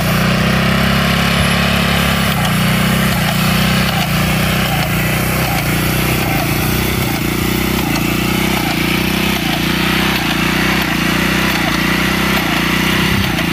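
The small gasoline engine of an airless line-striping machine running steadily while it sprays paint onto a curb.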